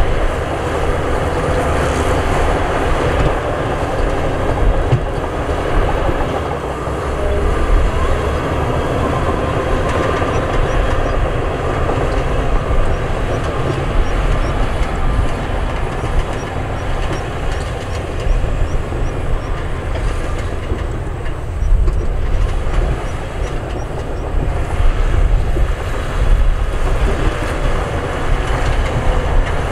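Heavy diesel earthmoving machinery working: a loud, steady engine rumble with irregular knocks and clatter throughout.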